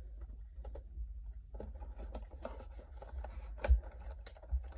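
Handling noises from a fishing crankbait being turned over in the hands: scattered small clicks and rubbing, with a sharper click about three and a half seconds in.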